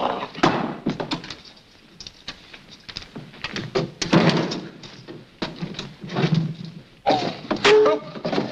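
Slapstick scuffle sound effects: a string of irregular knocks, thuds and clatters. Pitched music comes in about seven seconds in.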